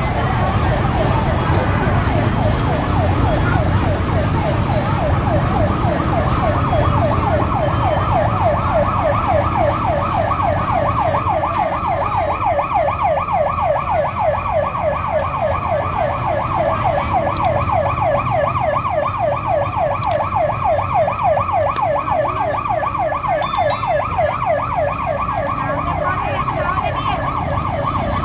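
A siren-like electronic warbling tone sweeping rapidly up and down, several times a second, without a break, over a steady background rumble of market and traffic noise.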